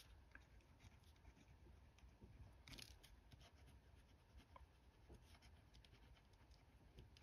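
Faint scratching of a pen writing on lined notebook paper, with a soft rustle about three seconds in.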